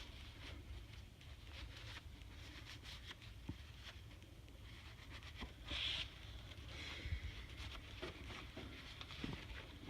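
Faint clicks and light rustling from small turbocharger parts being handled and fitted during a rebuild, with a brief brighter scrape about six seconds in.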